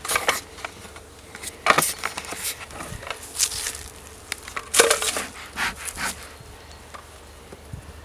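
Honeybees humming steadily around an opened wooden hive. Several short hissing puffs come from a bellows bee smoker, with wooden hive boards being handled.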